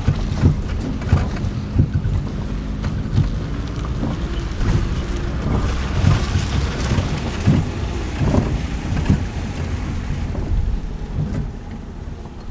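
Road noise heard from inside a moving car's cabin: a steady low rumble with frequent short thumps.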